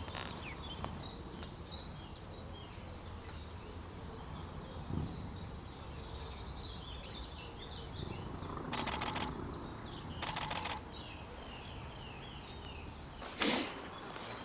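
Small birds singing, a steady run of quick chirps and trills, over quiet outdoor background. About nine and ten and a half seconds in come two short bursts of rapid clicks from a DSLR's shutter firing in high-speed continuous mode, with a louder knock near the end.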